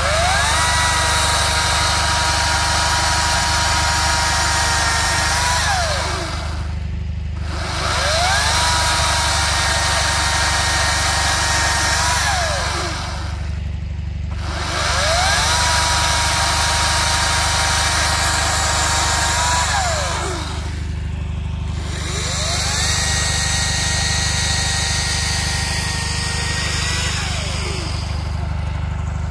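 Ryobi cordless electric chainsaw cutting tree branches in four runs. Each time its whine rises quickly to full speed, holds steady, then winds down, with short pauses between runs. A steady low hum runs underneath.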